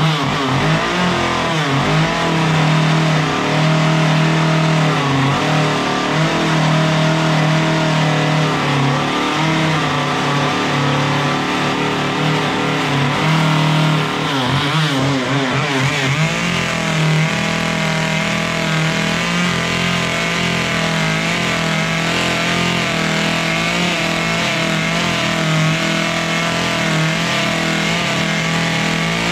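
Chainsaw running hard as its bar is dragged through wood to cut shallow angled grooves for a bark texture, the engine note wavering under load. About halfway through the pitch dips and swoops back up, then holds steady again.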